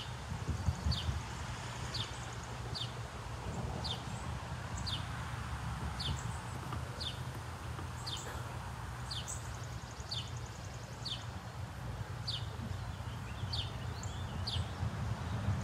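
A bird repeating a short, sharply downward-slurred high call about once a second, over a steady low rumble.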